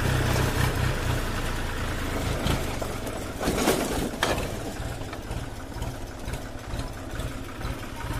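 Tractor engine idling steadily, with a couple of brief clatters about three and a half and four seconds in.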